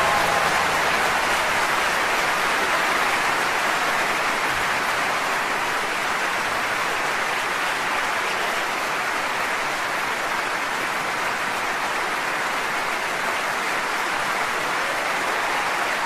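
Steady rushing noise like rain or running water: an even hiss with no separate drops, tones or beat.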